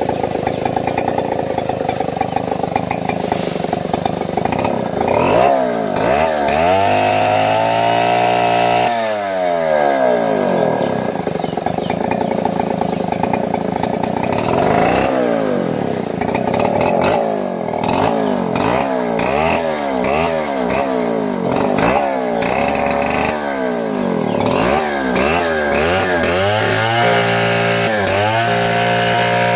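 Chainsaw running under a cut, its engine pitch steady at first, then dipping and rising again and again, about once a second, as it bogs in the wood and revs back up.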